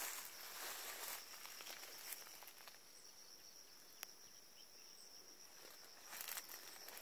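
Faint, steady high-pitched drone of insects chirring, with soft rustling in the first second or so and one sharp tick about four seconds in.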